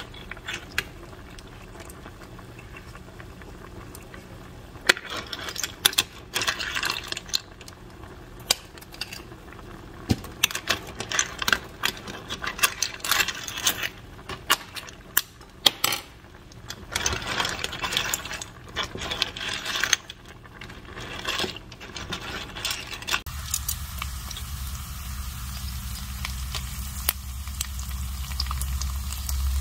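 Clams being stirred in a steaming stainless steel pot of soup with a silicone spatula: shells clatter and click against each other and the pot in irregular bursts, over the bubbling of the broth. About 23 seconds in, the stirring stops and a steady low hum with an even hiss takes over.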